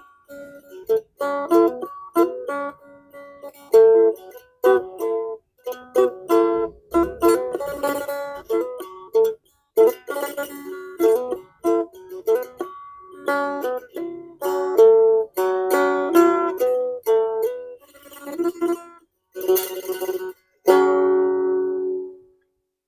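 Phin, the Isan plucked lute, played solo: quick runs of plucked melody broken by short pauses, ending on a final chord that rings out and fades near the end.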